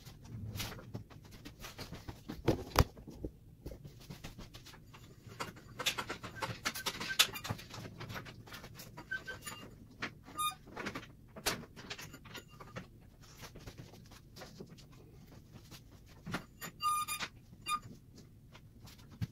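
Irregular clicks, knocks and metallic rattles as a sheet of quarter-inch drywall is handled on a drywall lift and cranked up against the ceiling. A few sharp knocks stand out, the loudest about three and seven seconds in.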